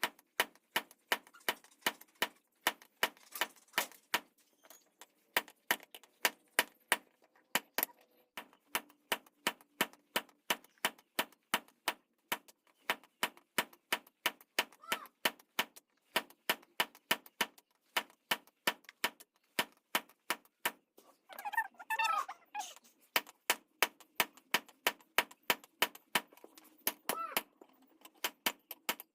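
Blacksmith's hammer striking steel from a vehicle leaf spring on the anvil in a steady rhythm of about three blows a second. About three-quarters of the way through, a brief pitched call or voice rises over the hammering.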